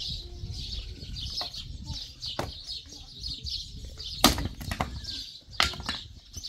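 Small birds chirping continuously over a low rumble, with a few sharp knocks; the loudest knock comes about four seconds in.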